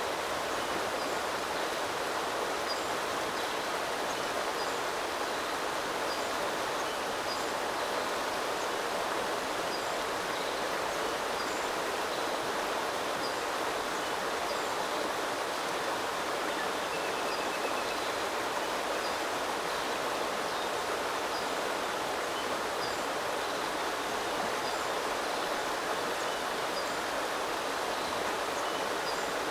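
Small river flowing with a steady rushing of water. Faint, high, short bird chirps repeat throughout, with a brief trill about halfway through.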